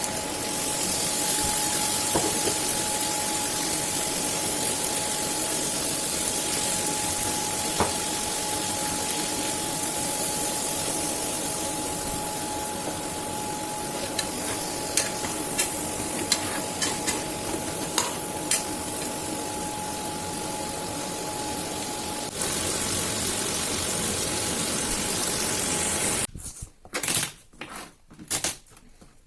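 Food sizzling in a hot frying pan: a steady sizzle with a thin steady tone underneath and scattered clicks. It cuts off suddenly near the end, and a few short knocks follow.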